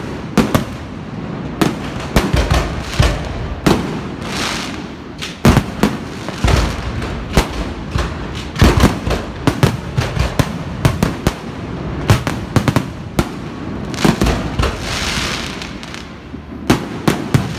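Aerial fireworks going off: a long run of sharp bangs at uneven spacing as shells launch and burst, with stretches of hissing crackle between them.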